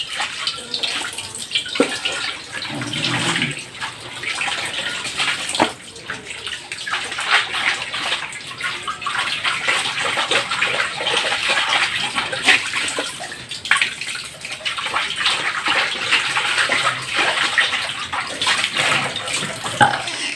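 Tap water running steadily while cookware is rinsed under it, with a few sharp knocks of the utensil; the water starts and cuts off abruptly.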